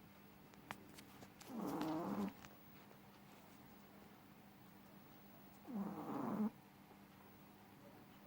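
A sleeping cat snoring: two snores, one about one and a half seconds in and one about six seconds in, each lasting under a second.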